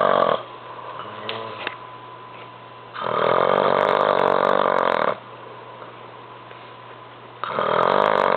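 A man snoring loudly: long snores of about two seconds each, about every four seconds. One tails off just after the start, the next comes about three seconds in, and a third begins near the end.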